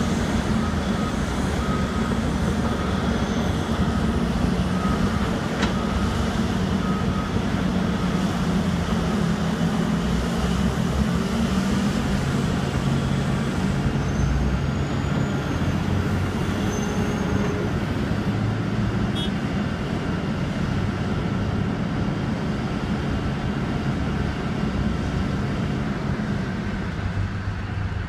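Heavy diesel engines of a Terex RH170 hydraulic mining shovel and the machines around it running steadily under load. A backup alarm beeps repeatedly for the first several seconds, then stops.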